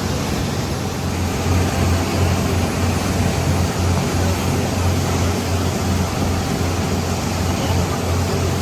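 Tour boat's engine droning steadily with a deep, even hum, under the rush of wind and water as the boat travels along.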